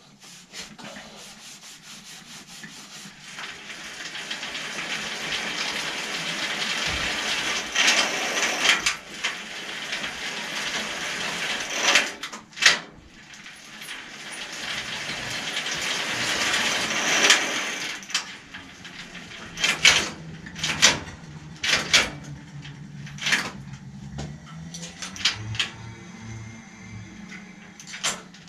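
A cloth rag rubbed hard and fast over a bicycle's metal tubing in long wiping strokes. Later it gives way to a run of sharp metallic knocks and clicks.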